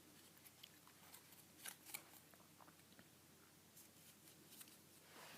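Faint crinkling and creasing of a sheet of folding paper being handled and pressed into folds, with a few sharper crackles about two seconds in.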